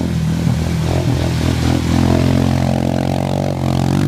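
Honda Foreman ATV's single-cylinder four-stroke engine revving under heavy load as the quad ploughs through deep mud and water, its pitch rising about halfway through as it bogs down.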